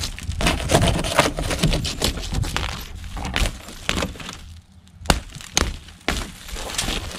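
Cracked laminated car windshield crunching and crackling as it is hacked and pushed out from inside with an Ontario SP-53 bolo knife. A dense run of cracking over the first few seconds is followed by several separate sharp strikes.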